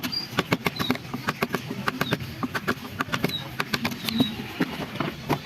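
Hand carving tools cutting and tapping into wood, with many quick, irregular clicks, several a second. A few short high chirps come in between.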